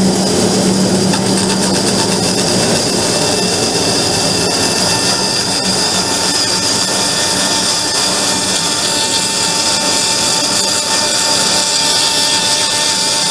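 Vertical band saw running steadily while its blade cuts a slot into the end of a wooden hammer handle.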